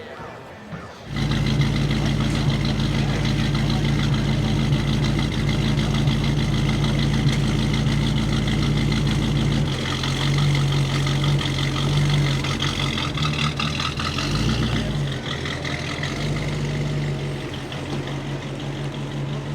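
A car engine starts about a second in and then idles loudly and steadily, its note shifting slightly a couple of times.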